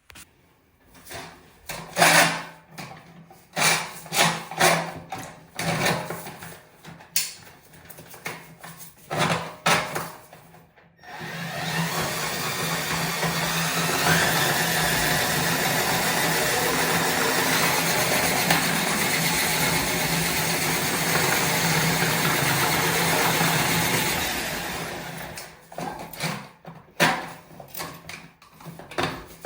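Scattered knocks and clatter of hand work, then a small electric power tool runs steadily for about thirteen seconds before winding down, followed by more knocks.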